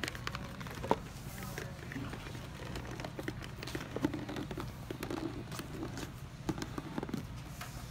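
Light taps, rustles and scrapes of white paperboard as a gift-box lid with a clear window is handled and set down onto its box base, with the sharpest taps about a second in and about four seconds in. A steady low hum runs underneath.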